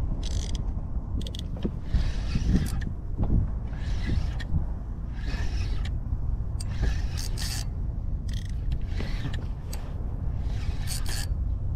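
Spinning fishing reel being cranked to wind in line, its gears and spool giving short, irregular whirring and scraping bursts, over a steady low rumble.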